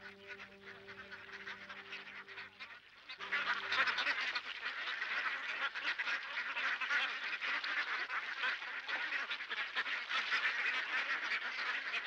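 Held music notes fade out about three seconds in. A dense, continuous chorus of calls from a flock of waterfowl follows.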